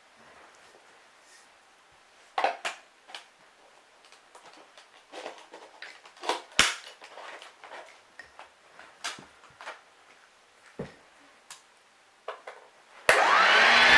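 Scattered light clicks and knocks, then near the end a Hoover Junior U1012 upright vacuum cleaner switches on, its motor running up to speed with a rising whine.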